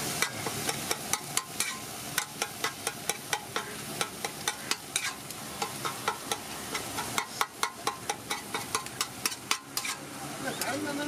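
Metal spatula clacking and scraping on a hot tawa griddle as fish roe bhurji is chopped and stirred. The frying food sizzles steadily under quick, irregular strikes, about three a second.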